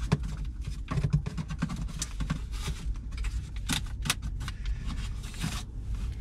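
Rummaging through items stowed between a van's front seats: a string of short clicks, knocks and rustles from things being handled and moved, over a steady low rumble.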